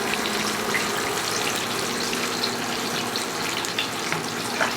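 Chicken breast deep-frying in hot oil: a steady sizzle with faint scattered pops.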